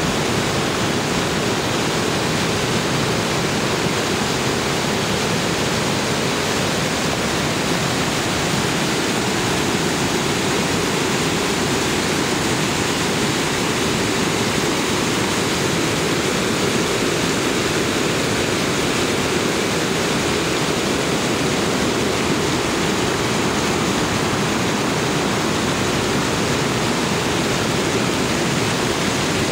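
Creek water rushing over rocks in whitewater rapids: a steady, unbroken rush.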